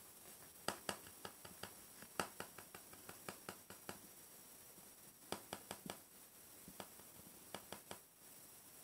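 Faint, irregular light clicks and taps, a few a second at times, over quiet room tone.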